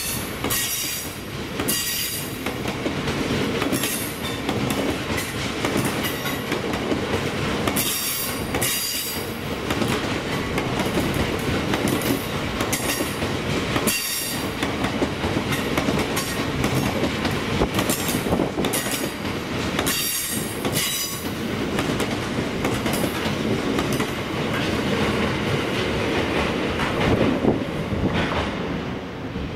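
A train running past on the rails, with a steady rumble and sharp wheel clicks over the rail joints every second or two. The sound drops away shortly before the end.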